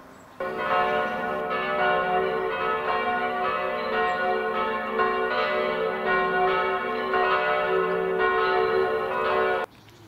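Church bells of the Bebenhausen monastery church ringing a peal, with repeated overlapping strikes and a long ring. The peal cuts in sharply just after the start and cuts off abruptly near the end.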